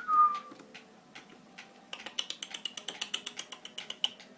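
Budgie in its cage: a short falling whistle, then about two seconds of rapid clicking chatter with a high tone over it.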